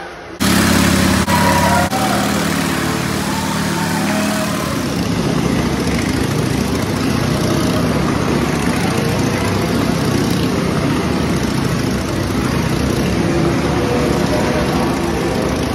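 Motorcycle engines start up about half a second in, blip twice, then run loudly and steadily as the riders get going.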